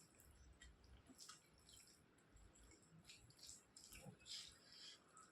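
Faint wet mouth sounds of chewing soft rice and curry: small scattered clicks and smacks, several a second.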